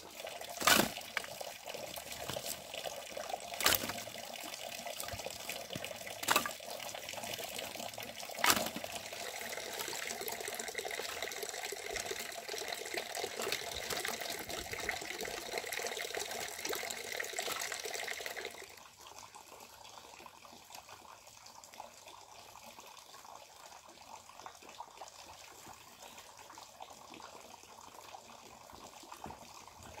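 Water running steadily, broken by four sharp knocks in the first nine seconds; it stops about 19 seconds in, leaving a faint background.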